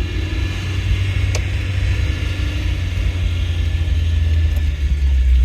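Steady low engine and road rumble inside the cabin of a moving 1989 Nissan Sentra, with one sharp click about a second and a half in.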